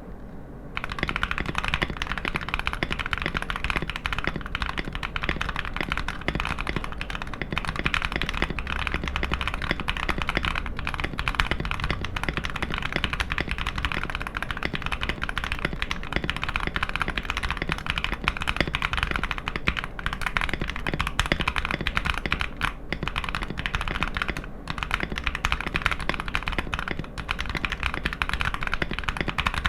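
Continuous fast typing on a Fantech Maxfit61 mechanical keyboard with KTT Blue Jacaranda switches in an acrylic case, a dense run of key clicks that starts about a second in.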